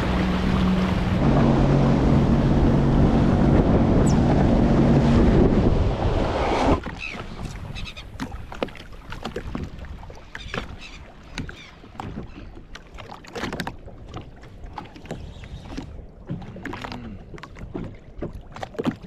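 Sea-Doo FishPro Trophy jet ski running at speed, a steady engine hum under rushing water and wind, which cuts off suddenly about seven seconds in. After that, only much quieter, irregular small knocks and ticks.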